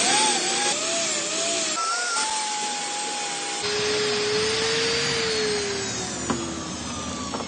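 CNC lathe running: whining drive motors whose pitch wavers and glides, over a steady hiss. The sound changes abruptly twice, about two and three and a half seconds in.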